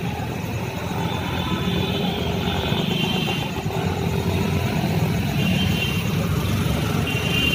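Steady hum of road traffic, with faint brief high tones about three seconds in and again near six seconds.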